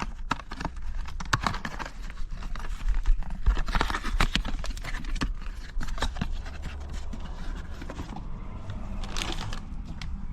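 Handling noises: irregular clicks, knocks and scraping over a steady low rumble.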